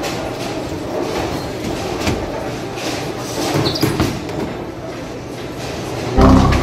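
Bowling alley rumble as a bowling ball is released and rolls down a wooden lane, with a short loud low thud near the end as the ball reaches the pins.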